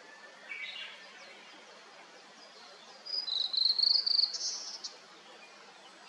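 Male blue-and-white flycatcher singing: around three seconds in, one song phrase, a rapid trill rising in pitch that ends in a brief higher burst, over a steady background hiss. A brief, lower bird call sounds about half a second in.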